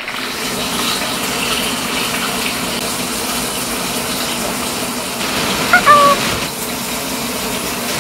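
Beef burger patties sizzling in oil in a frying pan, a steady hiss. About six seconds in, a short high-pitched cry rises briefly over it.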